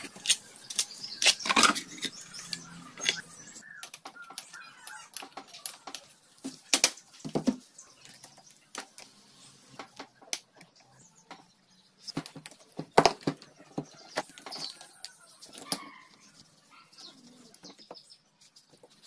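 Irregular metallic clinks, taps and knocks of bolts, tools and engine parts being handled while a 100cc motorcycle engine is taken apart, with rustling in between.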